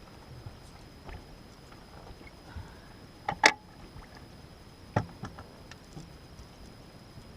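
A few sharp knocks and thumps, with faint ticks between. The loudest comes about three and a half seconds in and a second about five seconds in. They sound like gear being handled against a small boat.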